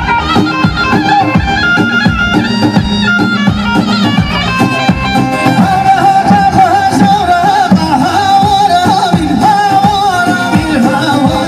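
Middle Eastern folk music: a wavering melody line over a steady drumbeat, running continuously.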